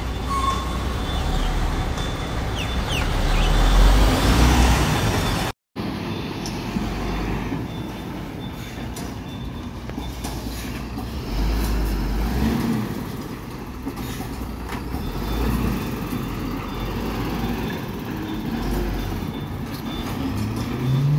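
Diesel engine of a MAN TGM 26.340 recycling truck running at low speed as it creeps along, its low rumble swelling louder every few seconds. The sound cuts out for a moment about five seconds in.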